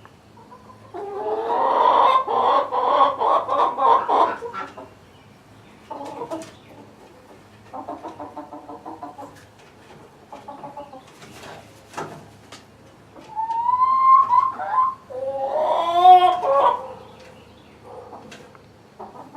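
Chickens clucking in several bouts of quick pulsed calls, with two louder, drawn-out calls that rise and fall about two-thirds of the way through.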